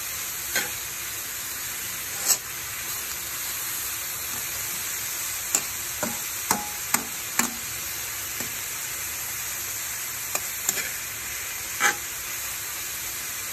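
Diced Spam and kimchi sizzling and frying in a nonstick pan, a steady hiss, while a metal spoon stirs the mix and knocks sharply against the pan about a dozen times at irregular intervals.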